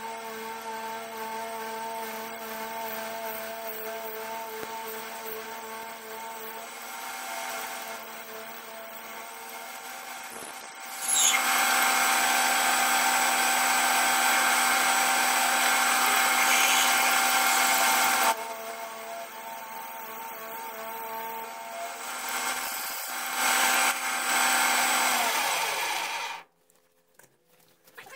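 Metal lathe running with a steady whine while a twist drill bores into a spinning brass ramrod pipe blank. The cutting noise gets much louder for several seconds in the middle and again briefly later. Near the end the lathe is switched off and the sound stops suddenly.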